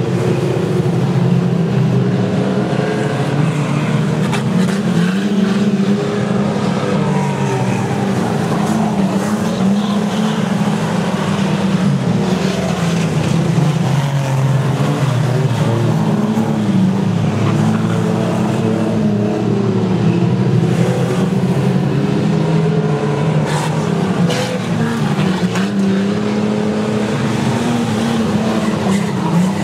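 Several speedway race car engines running together on the oval, their pitch rising and falling as the cars accelerate down the straights and lift for the corners.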